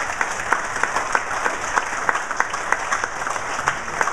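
Audience applauding: a dense patter of many hands clapping, with a few sharp single claps standing out.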